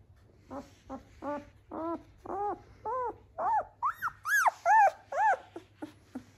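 A ten-day-old Doberman puppy crying in a string of about a dozen short whimpering squeals, each rising then falling in pitch. The cries grow higher and louder toward the middle, then turn shorter near the end.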